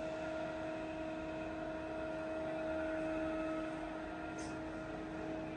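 Yang CK-3B CNC lathe standing powered up, giving a steady machine hum: a couple of clear steady tones over an even hiss.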